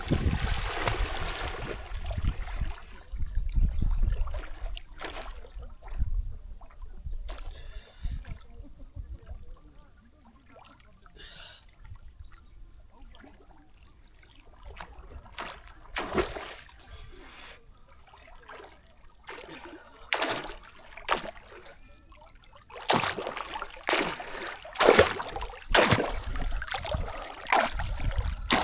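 Water splashing and trickling in irregular bursts, sparse through the middle and busier near the end.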